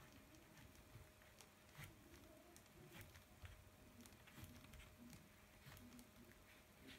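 Near silence, with faint scattered ticks and scratches of a pastel stick being stroked across paper.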